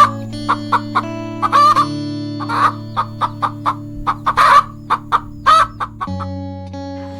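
A farmyard bird calling in a run of short, repeated clucks over background music with held chords.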